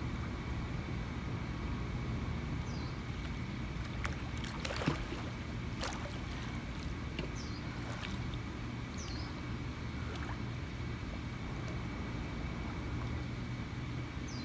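Pool water splashing and dripping as a swimmer comes up out of a handstand and moves in the water, over a steady low rumble. A faint high chirp repeats about every three seconds.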